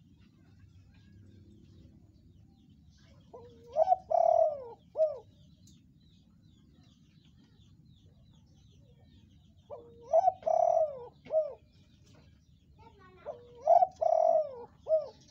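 Spotted dove cooing in three phrases a few seconds apart. Each phrase is a short opening note, a long coo that rises and falls, and a clipped final note.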